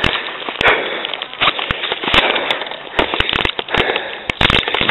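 Dense, irregular clattering with sharp knocks: wheels rattling over rough asphalt while the camera is jolted about.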